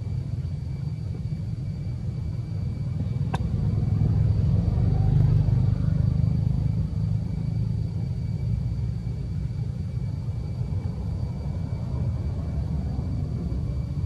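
Steady low rumble with a faint high steady whine above it, swelling slightly a few seconds in, and a single sharp click about three seconds in.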